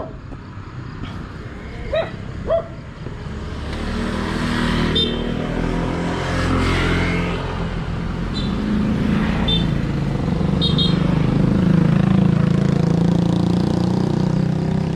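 Small motorcycles riding past on the road: engine noise builds from about four seconds in, eases, then swells again as more bikes approach after about eight seconds. A dog barks twice about two seconds in.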